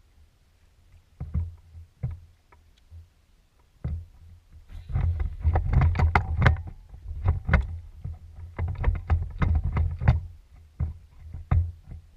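Knocks, clunks and rattles in a small fishing boat as the angler handles his rod and moves about: a few separate knocks at first, then a dense run of clicks and thumps from about four seconds in.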